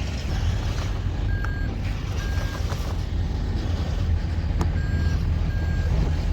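A truck's reversing alarm sounding four short, high beeps over a steady low engine drone.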